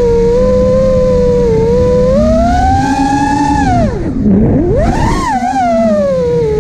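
FPV quadcopter's brushless motors whining as they spin. The pitch rises a little about two seconds in, drops sharply about four seconds in and climbs straight back, as the throttle is cut and punched again.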